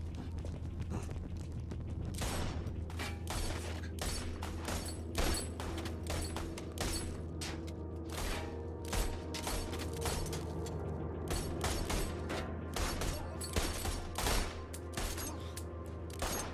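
Handguns firing in a shootout: dozens of shots in rapid, irregular succession, some louder than others, over a steady low hum.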